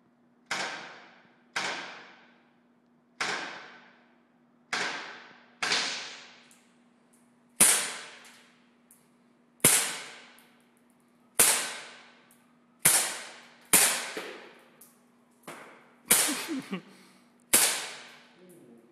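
Umarex SA177 BB gun firing single shots: about a dozen sharp cracks, one to two seconds apart, each fading away over about a second.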